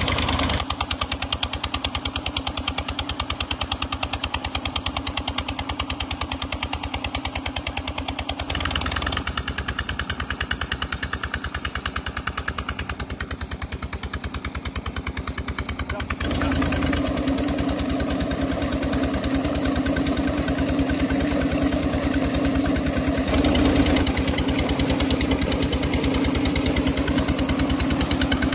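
An irrigation pump's engine running steadily with a fast, even chugging beat, over the rush of water gushing from the pump's outlet pipe into the pond. The sound shifts abruptly a few times and is loudest in the second half.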